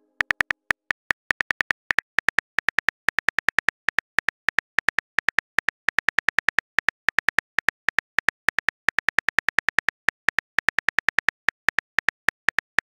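Phone on-screen keyboard clicks as a message is typed: a rapid, uneven run of short, sharp taps, about four or five a second.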